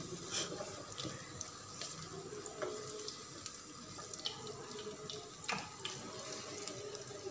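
Hot oil sizzling faintly in a frying pan around browned boiled eggs, as they are lifted out with a slotted plastic spatula. A few light clicks of the spatula against the pan, the clearest about five and a half seconds in.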